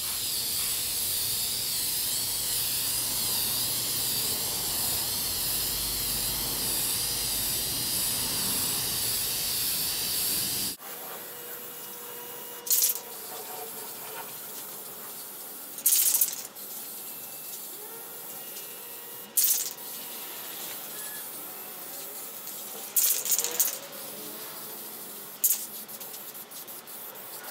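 Aerosol spray-paint can spraying a first coat of paint: one long continuous hiss for about ten seconds that cuts off suddenly, then several short sprays of a second or so each.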